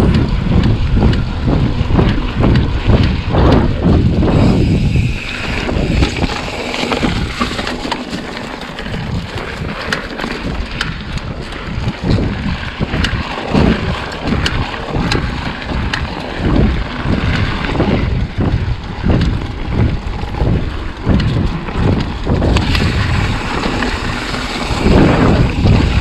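Trek Fuel EX 8 mountain bike ridden along a dirt trail: tyres rolling with a steady run of rattles and clicks from the bike, under heavy wind buffeting on the microphone. The wind rumble eases about five seconds in and comes back strongly near the end.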